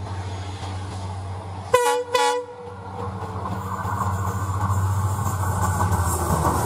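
WDP-4D diesel locomotive approaching with its engine running steadily. It sounds two short horn blasts about two seconds in. After that the rumble of the train and its wheels on the track grows louder as it nears.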